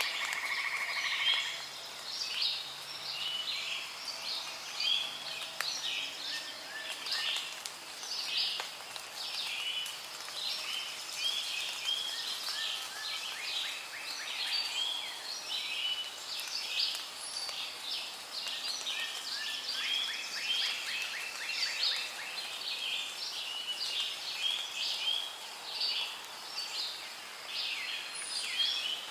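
Rainforest ambience: a dense chorus of many birds chirping and trilling over one another, over a steady faint hiss.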